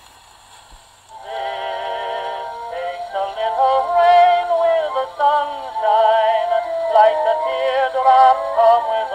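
An old acoustic gramophone record of a popular song starts playing about a second in, after faint surface hiss: a small band with a wavering, vibrato-laden melody, thin and tinny with almost no bass.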